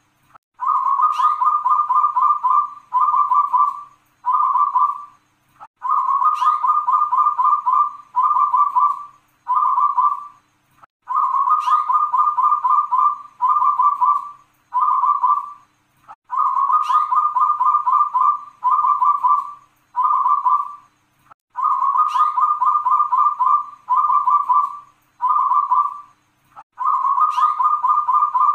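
A zebra dove (perkutut) singing its cooing song over and over, about every five seconds, six times. Each phrase is a long rolling coo with a quick rising note at its start, followed by three short coos, the 'klauw ke tek kung kung kung' pattern.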